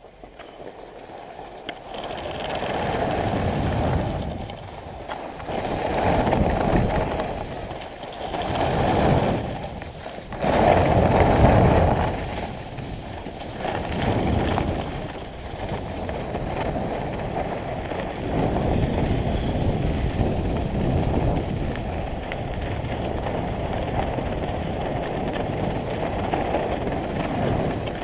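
Wind rushing over a body-worn action camera's microphone and skis hissing and scraping on groomed snow during a downhill run. It swells and fades in waves for the first half, then runs steadier.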